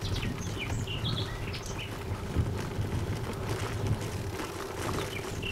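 Steady low wind and road rumble from travelling along the road, with several short high bird chirps in the first couple of seconds and another near the end.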